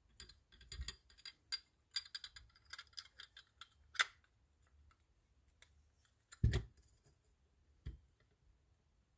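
Small metal clicks and clinks of a Penn Senator II conventional reel being put back together, its spool, frame and side plate fitted and seated by hand. A rapid scatter of light ticks, a sharper click about four seconds in, then a heavier knock about six and a half seconds in and another near eight.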